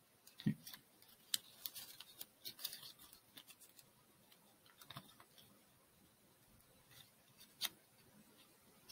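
Origami paper being creased and folded by hand: faint, scattered crinkles and small crackles, with a few sharper ones about half a second, a second and a half and seven and a half seconds in.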